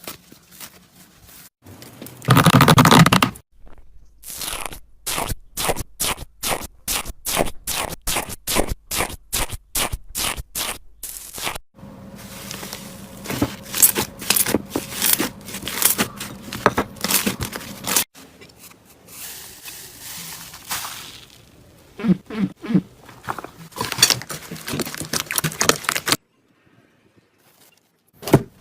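Slime being squished and worked: runs of sticky, crackly clicks and pops, several a second, with a louder squelch of about a second near the start and a short silent break near the end.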